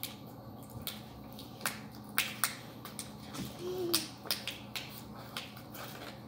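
Irregular sharp clicks and crackles of plastic toothbrush packaging being handled and pulled apart, about a dozen snaps spread unevenly through.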